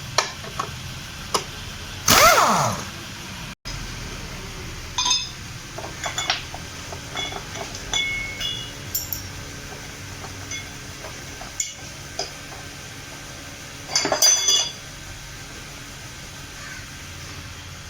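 Metal tools and car steering parts clinking and knocking while being worked on, with short metallic ringing. There are two louder clatters, one about two seconds in and one about fourteen seconds in.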